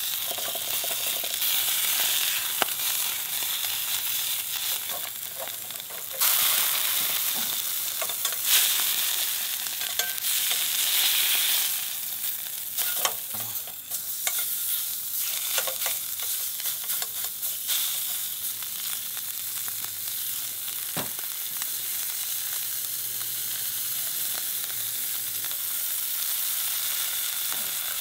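Beef steak sizzling in a pan, frying in its own rendered fat with no oil added. A metal utensil clicks and scrapes against the pan as the meat is turned. The sizzle gets louder about six seconds in.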